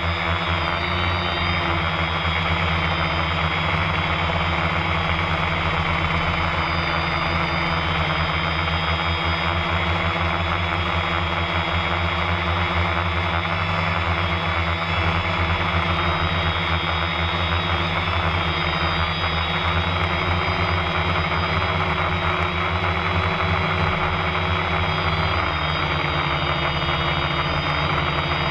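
Electric motors and propellers of an FPV aircraft running steadily in flight, picked up by the onboard camera: a constant low hum with a high motor whine above it. The pitch shifts slightly about a second in and again near the end as the throttle changes.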